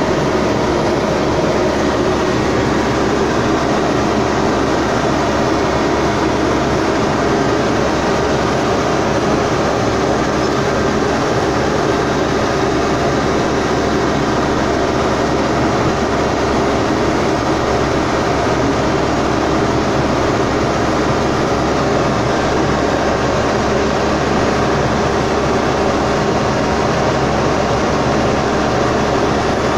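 Excavator's diesel engine running steadily at a constant level, heard from inside the operator's cab.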